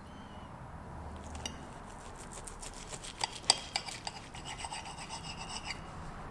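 Table knife and fork cutting an omelet on a plate: the blade rasps and scrapes against the plate in a quick run of small clicks, with one sharper clink about halfway through.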